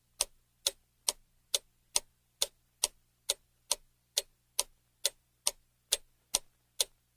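Clock-ticking sound effect: sharp, evenly spaced ticks a little over two a second, timing the countdown to guess.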